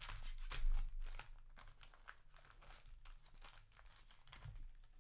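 Foil trading-card booster pack being torn open and its wrapper crinkled by hand, with a loud rip about half a second in and then a softer, steady crackle.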